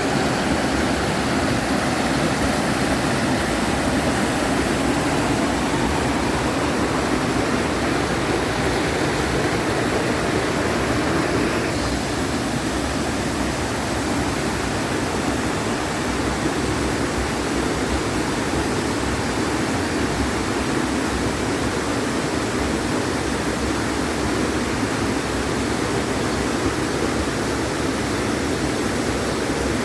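Mountain valley stream rushing steadily, an even roar of flowing water with a slight change in tone about twelve seconds in.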